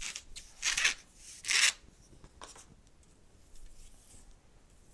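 Short rubbing and scraping noises as a long T8 LED tube is handled and fitted into a fluorescent fixture's lampholders, the two loudest in the first two seconds, then fainter scrapes.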